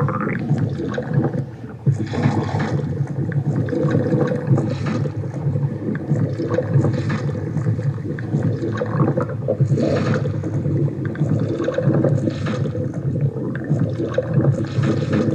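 A stomach growling and gurgling continuously: a low, bubbling rumble with short, louder gurgles every few seconds.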